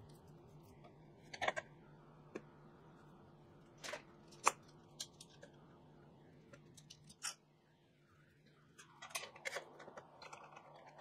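Scattered light clicks and knocks of clamps and boards being handled and tightened on a workbench during a glue-up, over a faint steady hum; a cluster of clicks comes near the end.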